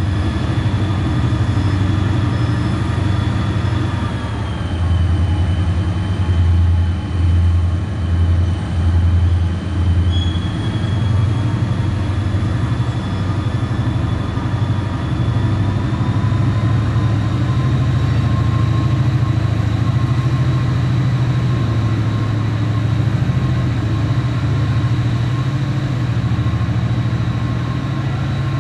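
Diesel freight locomotive running as it approaches at the head of a train: a steady low engine sound under a high whine. The whine drops in pitch about four seconds in and climbs back up later. A low throbbing pulses about once a second for a few seconds midway.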